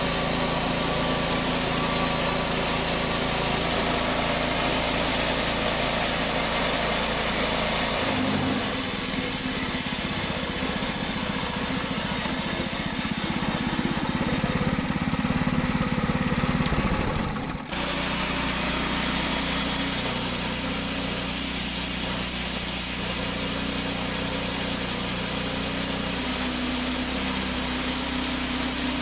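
Sawmill's newly fitted replacement engine running steadily. About 8 s in its note rises and turns rougher for roughly ten seconds, then drops back abruptly to its earlier steady running.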